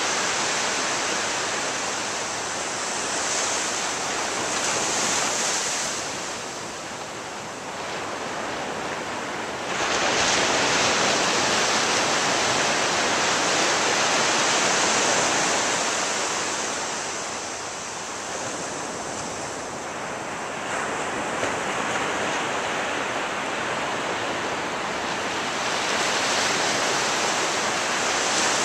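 Ocean surf washing onto a beach at night: a steady rush of breaking waves that swells and ebbs. A wave breaks with a sudden surge about ten seconds in, and another comes in after twenty seconds.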